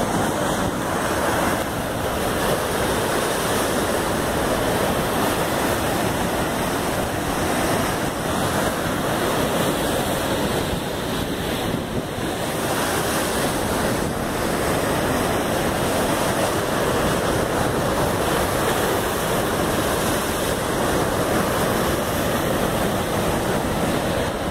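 Heavy ocean surf breaking and washing over rocks: a continuous rush of churning whitewater, with wind on the microphone.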